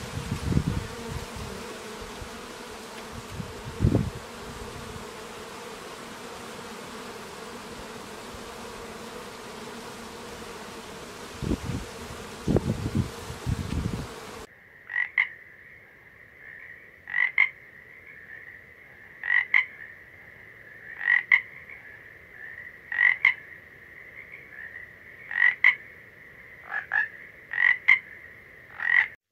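Honeybees buzzing around the entrances of their hive boxes, with a few low thumps. About halfway through it changes abruptly to a tree frog calling: sharp croaks about every two seconds over a steady high trill.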